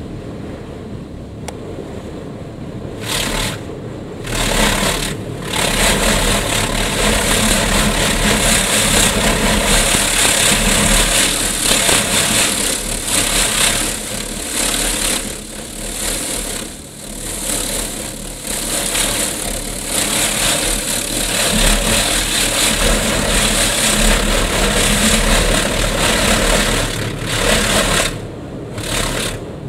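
Touchless car wash's high-pressure water jets hitting the car's body and windows, heard from inside the cabin as a loud hiss. It comes in short bursts a few seconds in, then runs almost unbroken with brief dips until near the end, over a steady low hum.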